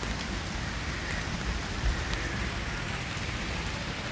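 Torrential rain pouring steadily, with a low rumble and a couple of louder drops tapping close to the microphone.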